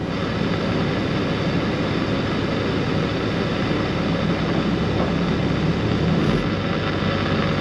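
Diesel engine of a semi-truck idling steadily, heard from inside the cab, with a slight shift in the low rumble about six seconds in.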